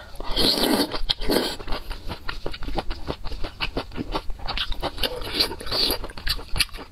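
Close-miked eating of saucy wide noodles: a wet slurp as a noodle is sucked in, then chewing with many quick wet mouth clicks and smacks.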